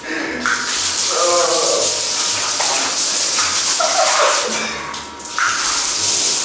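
Water jet spraying onto a person in a tiled shower room, a steady rushing splatter that breaks off briefly just before five seconds in and then resumes.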